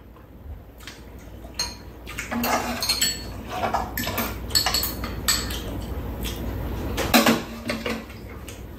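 Metal spoons and chopsticks clinking and scraping against a frying pan and bowls as people serve themselves and eat. The clinks come repeatedly after a quieter first second.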